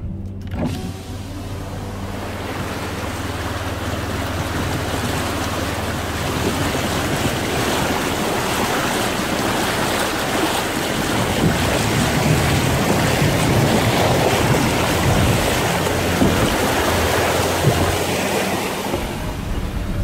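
Muddy river water rushing and splashing against the side of a 4x4 as it wades through a deep crossing: a steady rushing noise that grows louder over the first half and stays loud.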